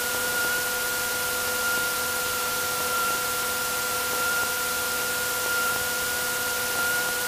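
Cessna 182's Continental IO-550 six-cylinder engine running at low power before takeoff, heard in the cockpit as a steady hiss with a faint steady hum.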